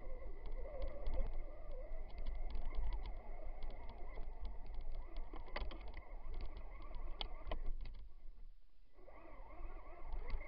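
Traxxas Stampede 2WD RC truck driving through snow, heard from a camera on its roof: the electric motor and gears whine with a steady high tone over a low rumble of vibration on the microphone, with many sharp clicks and knocks. The drive cuts out briefly about two seconds before the end, then starts again.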